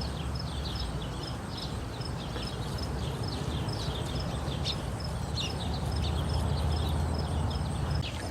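Small birds chirping repeatedly, over a steady low rumble of outdoor background noise.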